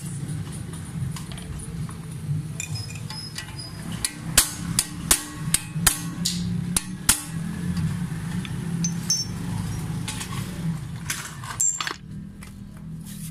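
Hammer tapping a punch against the metal hub plate of a pedestal fan's blade assembly: a run of sharp metallic taps, loudest and quickest between about four and seven seconds in, over a steady low hum.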